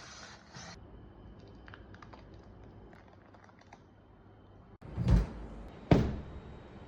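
Scattered light clicks and taps, then two loud thumps a little under a second apart near the end.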